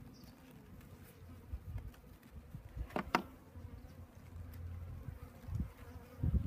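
Swarm of honeybees buzzing in a steady low hum. About halfway through there is one sharp click, and near the end a few low handling thumps.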